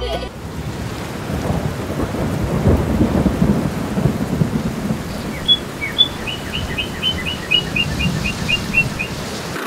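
Thunderstorm sound effect: steady rain with thunder rumbling, heaviest about a third of the way in. In the second half a bird chirps a quick run of about a dozen short high notes over the rain.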